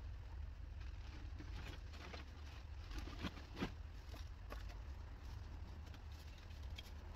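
Faint scattered clicks and rustles of old roofing debris being picked up and dropped into black plastic garbage bags, with two sharper knocks about halfway through, over a low steady rumble.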